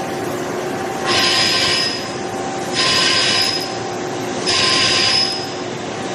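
Vision Wide ASM-series five-axis machining centre drilling with a 14 mm drill at 2800 rpm under coolant: a steady spindle hum, with a high-pitched cutting whine that comes in three times, about every 1.7 s and just under a second each, as the drill pecks into the part.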